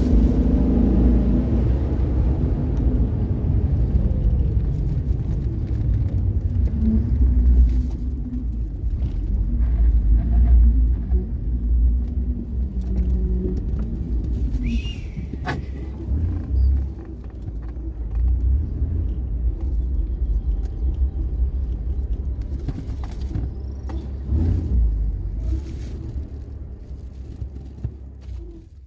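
1997 Ford Explorer's 4.0 L OHV V6 running through a Flowmaster exhaust, a deep low rumble with the revs shifting a little. The sound fades out near the end.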